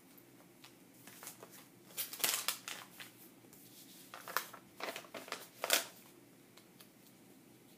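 Sticker sheets and their plastic sleeves rustling and crinkling as they are picked up and shuffled through by hand. The rustles come in two bunches of short, sharp crackles, one about two seconds in and a longer one from about four to six seconds.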